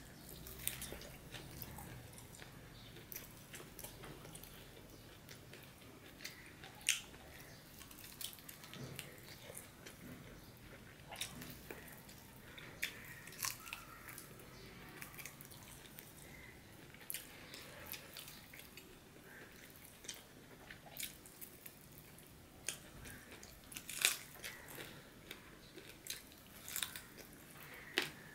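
Mouth sounds of a man eating rice mixed with fried leafy greens by hand: chewing with many scattered sharp smacks and clicks, a couple of them louder than the rest.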